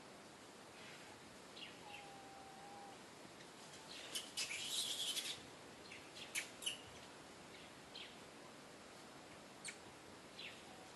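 Young long-tailed macaques calling: a short whistled coo about two seconds in, then a loud burst of shrill squeals about four to five seconds in, followed by a few sharp high chirps. The calls are typical of a young macaque crying for its mother.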